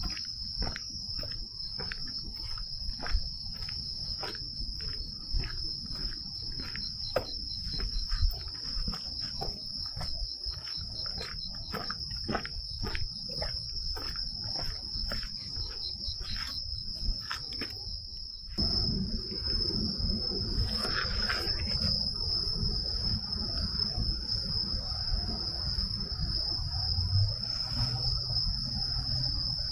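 Insects trilling steadily at a high pitch, with footsteps on a trail about twice a second. About two-thirds of the way in the steps stop and a low rumbling noise comes in under the trill.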